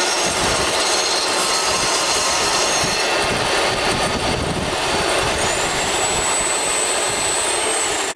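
DeWalt jobsite table saw ripping a wooden panelling strip to width, running loud and steady. About five seconds in, a high whine rises and holds as the blade comes free of the wood.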